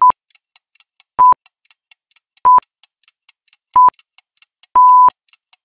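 Countdown-timer sound effect: four short, high electronic beeps about a second and a quarter apart, then a longer final beep marking the end of the countdown, with faint quick ticking between the beeps.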